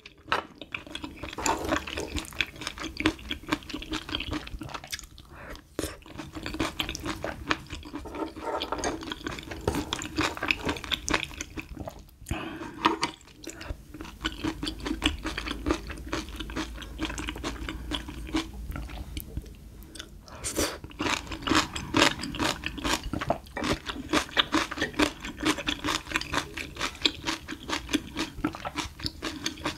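Close-miked eating sounds: wet, sticky chewing of spicy stir-fried small octopus in thick sauce, with many small mouth clicks and a few short pauses.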